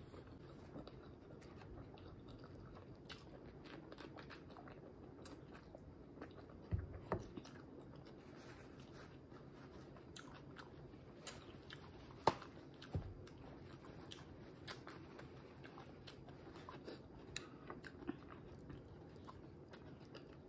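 Close-up chewing of a mouthful of fried egg: soft wet mouth sounds with many small clicks, and a few louder sharp clicks about seven and twelve seconds in.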